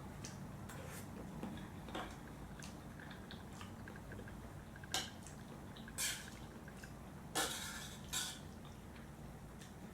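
Eating noodle soup: utensils clicking against the bowl and a few short sips of broth, about four quick sounds in the second half.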